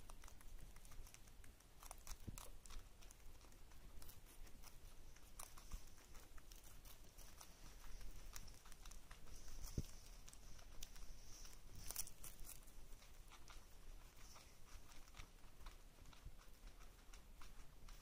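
Guinea pigs and a budgie nibbling and tearing leafy greens: faint, scattered crunches and soft crackles of chewing.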